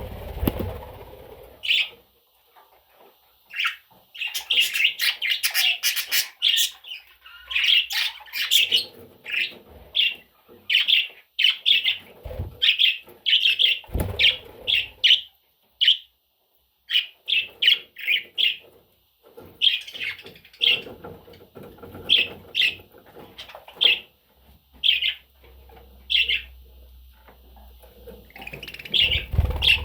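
Budgerigar chattering: long runs of short, rapid chirps and squawks, with a couple of brief low thumps about halfway through.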